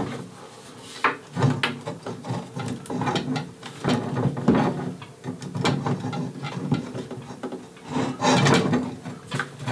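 The Ender 7 3D printer's top section being shifted and pressed onto its frame uprights: irregular scraping, rubbing and knocks. It will not seat because a screw head at the top does not line up with its hole, so the top wobbles.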